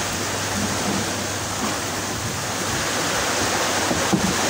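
Steady rush of sea water washing and breaking against the shore.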